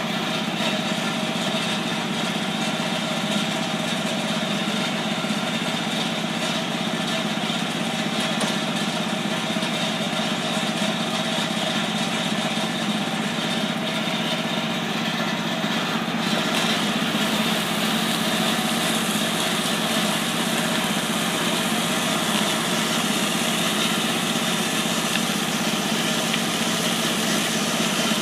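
Engine of a truck-mounted hydroseeder running steadily at constant speed while slurry is sprayed onto the slope. About halfway through a steady hiss joins the engine sound.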